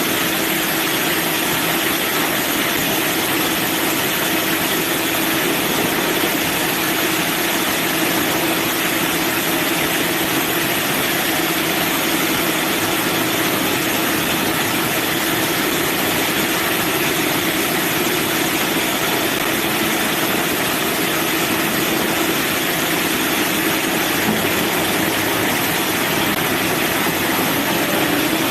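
Manual band sawmill running steadily: a constant hiss with a steady hum under it, unchanged throughout.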